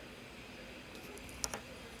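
Faint steady hiss with a single short sharp click about one and a half seconds in.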